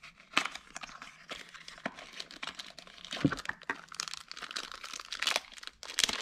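Plastic bag crinkling and crackling as an amplifier's small bass remote knob is unwrapped by hand, with irregular sharp crackles throughout.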